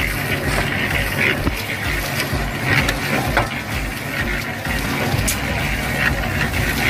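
Small battery-powered gear motor of a toy concrete mixer running steadily and turning the drum, with a regular low pulsing. A few short scrapes of a scoop digging into dry cement powder.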